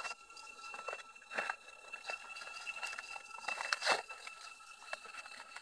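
Fresh leafy wild greens rustling and crinkling as they are handled and pressed into a woven bamboo basket, with irregular small crackles and a louder rustle about four seconds in.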